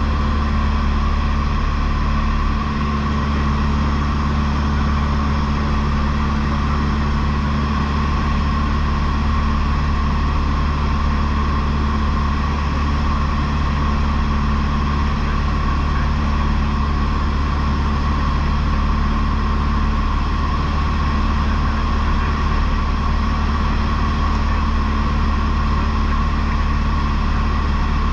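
Cessna 152's four-cylinder Lycoming O-235 engine and propeller running steadily in flight, a constant drone with no change in power.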